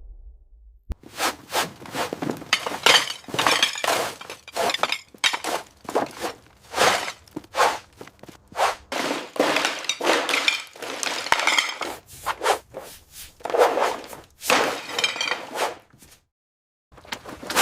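A long run of irregular breaking, clinking and knocking of hard debris, with a brief gap near the end.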